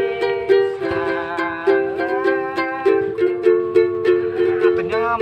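Strummed string instrument playing chords in a steady, even strumming rhythm.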